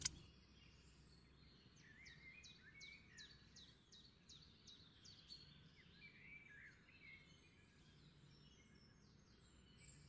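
Near silence: faint outdoor night ambience with a run of quiet, high chirps repeating a few times a second, mostly in the first half.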